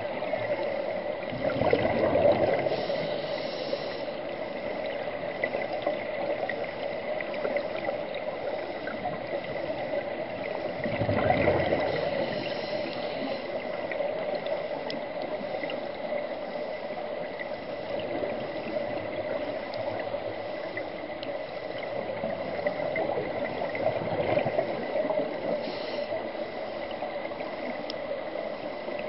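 Underwater sound through a camera housing: a steady bed of water noise with a thin high hum. Three times, about every eleven seconds, a diver's scuba exhalation swells up as a gurgling rush of bubbles.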